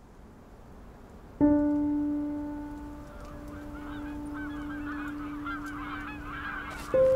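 A flock of geese honking, many overlapping calls that start about three seconds in and grow busier. Before them a low held musical note sounds about a second and a half in and lingers, and a second, higher note starts near the end.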